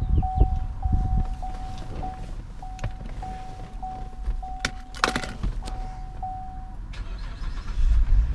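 Cadillac SRX cabin warning chime pulsing about twice a second, with a few sharp clicks and knocks of handling in the cabin. Near the end the chime stops, and a steady hiss and a louder low rumble come in.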